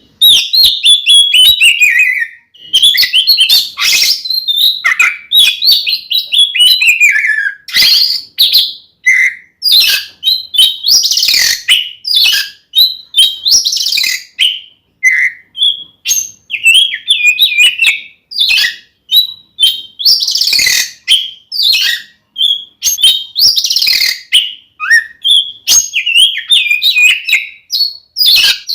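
Oriental magpie-robin (kacer) singing loudly and almost without pause: rapid, varied phrases of whistled glides mixed with sharp, scratchy notes, a full-voiced fighting song.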